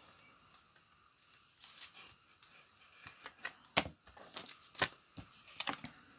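Trading cards and packaging being handled: scattered light clicks and crinkles at irregular intervals.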